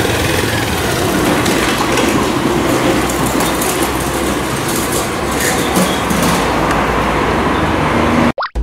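Motorcycle engines running as small bikes ride off, with some revving and a little crackling in the middle; the sound cuts off abruptly near the end.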